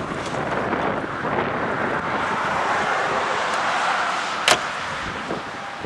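Car pulling off onto the road shoulder: steady tyre and road noise that swells and eases, with one sharp click about four and a half seconds in.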